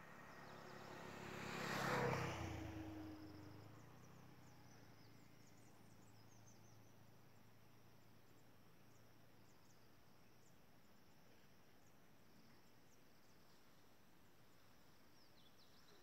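A motor vehicle passes close by, swelling to a peak about two seconds in and fading away by about four seconds. After that, quiet outdoor ambience with faint high bird chirps and insects.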